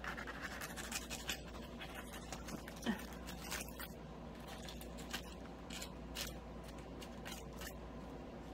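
Aluminium baking foil crinkling and tearing in scattered short crackles as it is pulled open with a knife and fork, with a louder crackle about three seconds in.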